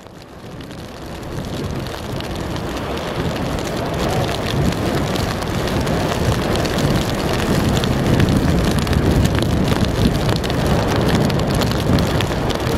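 Wind rumbling and buffeting on the microphone over surf breaking against a rock jetty. It fades up over the first couple of seconds to a steady roar of noise.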